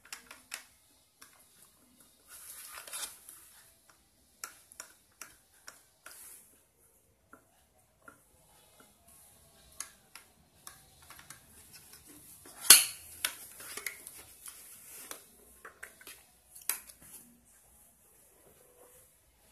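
Plastic clicks, taps and knocks from handling a Tamiya Mini 4WD Speed Checker: fingers on its rollers and casing, then the box being turned over and its battery cover worked loose. A sharper, louder click comes a little past halfway, and another about three seconds later.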